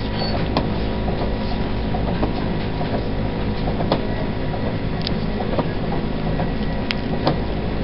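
Rustling and handling noise as gloved hands work gauze and tape at a neck catheter dressing close to the microphone, with scattered sharp clicks over a steady low hum.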